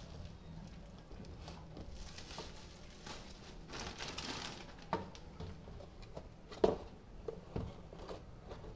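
A cardboard tool box being handled on a wooden tabletop: scattered light taps and rustles, with a sharp knock about two-thirds of the way through.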